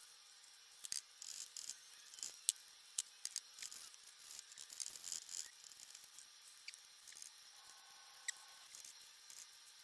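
Faint, irregular scratching with many sharp little clicks, the sound of a paintbrush working paint on a canvas.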